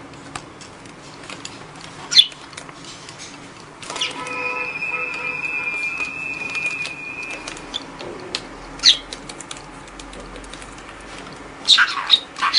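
Pet budgerigar: a few short, sharp chirps with small clicks and scratches between them, and a steady high tone held for about three and a half seconds in the middle.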